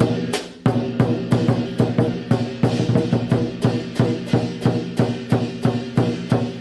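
Traditional Cantonese lion dance drumming (Hok San Gu): a big drum struck in a fast, even rhythm of about four beats a second, over the steady ringing of gong and cymbals. The beat thins for a moment just after the start, then goes on.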